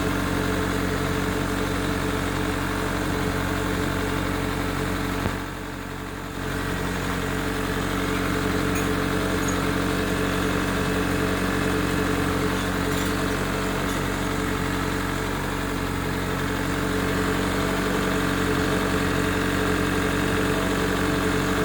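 Chevrolet Corsa Wind's 1.6-litre four-cylinder engine, freshly repaired and at operating temperature, idling steadily. The sound drops in level for about a second, around five and a half seconds in.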